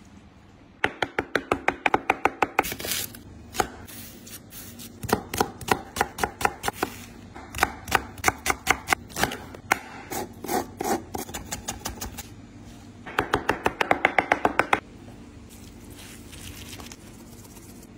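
Cleaver chopping vegetables on a wooden cutting board: fast runs of sharp strikes, about seven a second, in three bursts with slower single chops between. It goes quieter near the end.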